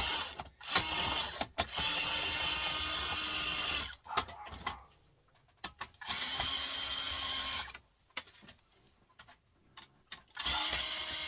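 A power drill unscrewing screws from printer parts. It runs in spurts of two to three seconds: one ends just after the start, then about a second in, about six seconds in, and again near the end. Short clicks of parts and screws fall between the runs.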